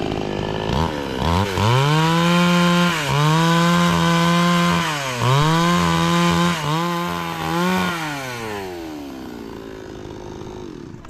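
Gas chainsaw idling, then revved to full throttle about a second in as it cuts into a wooden slab. Its pitch dips briefly three times under load, and the throttle is released about eight seconds in, letting the engine wind down.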